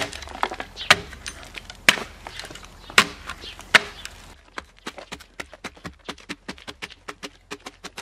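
A heavy blade on a wooden handle chopping at the bark of a pine log to knock the dirt off: five sharp strikes about a second apart, then a quicker run of lighter strokes, about five a second.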